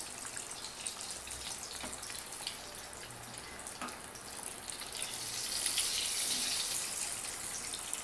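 Besan-battered potato vadas deep-frying in hot oil in a kadhai: a steady sizzling hiss with small crackles, growing louder about five seconds in.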